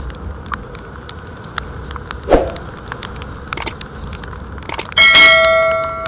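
Rapid sharp ticks of raindrops in heavy rain, with a dull knock a little past two seconds. About five seconds in a loud metallic strike rings on like a bell, fading over about a second.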